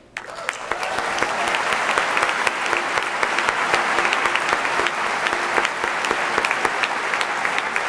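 Audience applauding in an auditorium: dense clapping that builds up within the first second and then holds steady.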